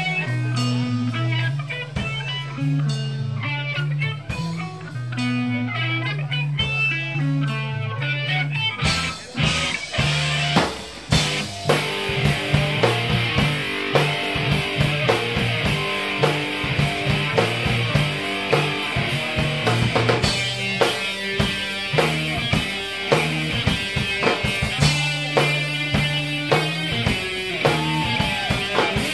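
Live rock band playing an instrumental passage: guitars over a steady bass line, with the drum kit coming in about ten seconds in and keeping an even beat with cymbals.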